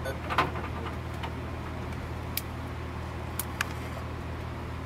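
Room tone: a steady low hum, with a brief knock about half a second in and a few faint, sharp clicks later.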